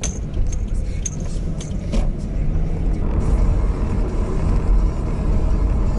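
Car engine and road noise heard inside the cabin as the car pulls out and drives off, a steady low rumble that grows a little louder after about two seconds. Sharp clicks come about twice a second in the first two seconds.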